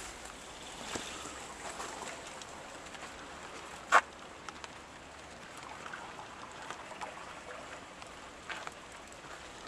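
Quiet outdoor ambience: a steady low hiss with a few faint clicks, and one sharp click about four seconds in.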